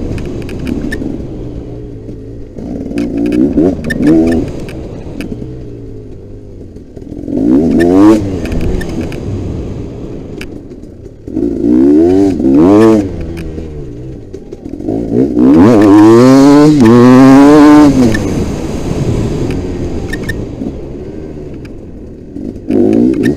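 Motocross bike's engine revving hard and backing off again and again as it is ridden round a dirt track, heard from the rider's helmet. Several rising pulls, the longest and loudest about two thirds through, with quieter off-throttle stretches between.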